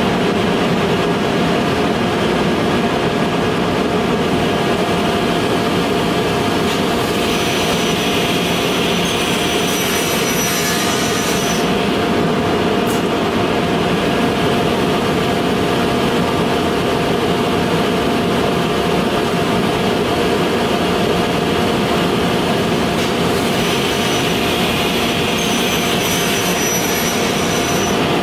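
Holzma Optimat HPP-250 CNC panel saw running: a steady loud machine drone with a few held tones. Twice a brighter hiss with a high whine comes in for a few seconds, once about a quarter of the way in and again near the end.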